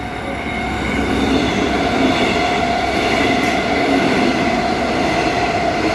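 Six-car electric suburban train passing through a station at speed without stopping: a steady rushing rumble of wheels on rail with a steady whine on top, swelling over the first second and then holding loud.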